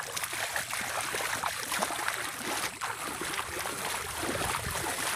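Bare feet wading through shallow muddy water in a flooded rice paddy: a string of uneven splashes and sloshes as each step lifts and drops in the water.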